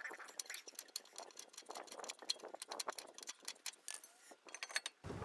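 Faint, irregular metallic clicks and ticks from a rear drum parking-brake shoe adjuster being turned by hand with a tool, tightening the shoes outward.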